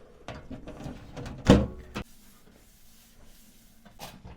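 Several knocks and clatter from equipment being handled, with one loud thump about a second and a half in, then a few light clicks near the end.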